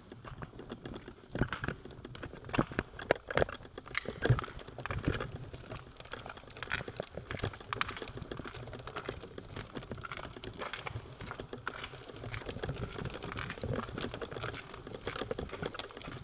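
Bicycle rolling along a rough towpath inside a brick-lined tunnel: a steady low rumble of the tyres with many irregular clicks and rattles from the bike, and a few louder knocks in the first few seconds.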